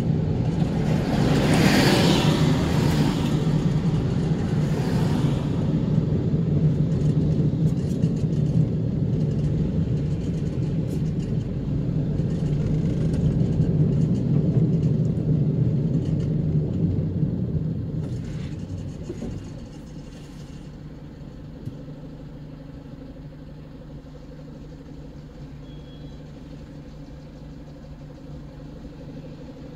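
Engine and road noise heard inside a moving car, with a bus and another vehicle swelling past the other way in the first five seconds. About two-thirds of the way through the noise falls off to a quieter steady engine hum as the car slows to a stop in traffic.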